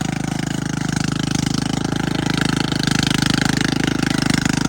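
Remote-control brush mower's engine running steadily with a fast, even pulse while it cuts through thick grass and weeds.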